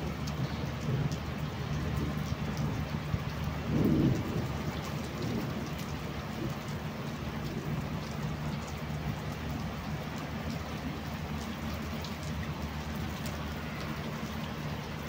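Heavy rain falling steadily on rooftops, a dense even hiss, with one brief low thump about four seconds in.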